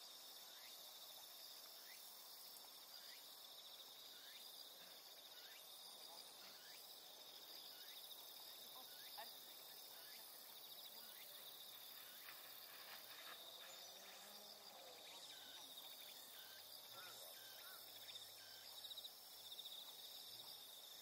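Faint chorus of crickets and other insects: a steady, high, finely pulsing trill, with short chirps repeating over it.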